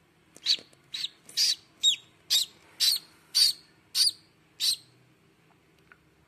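A duckling hatching from a balut egg, peeping loudly from inside its cracked shell: a run of about nine short, high peeps, roughly two a second.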